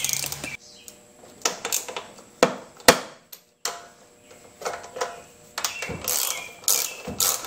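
Screwdriver undoing the screws of a lawn mower's plastic air filter housing: irregular clicks and short scraping, ratchet-like turns of the tool against plastic, the sharpest click about three seconds in.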